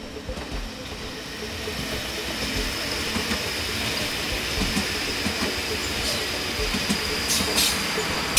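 A train approaching along the track, growing steadily louder, with a thin high whine running through it and a few sharp high squeaks near the end.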